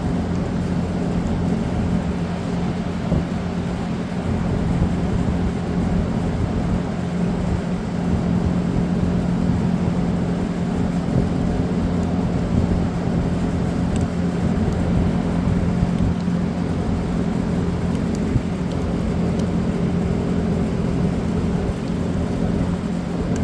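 Steady low mechanical hum at a constant pitch, with a few faint small ticks now and then.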